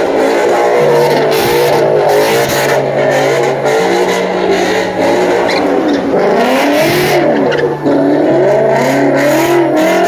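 A car's engine revving hard, its pitch swinging up and down as the throttle is worked during a burnout in the smoke, with the tyres screeching against the pavement.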